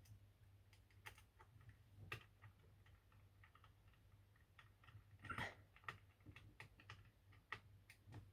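Faint, irregular clicks and ticks of a small screwdriver turning a tiny screw into a laptop, with a slightly louder patch of clicks about five seconds in.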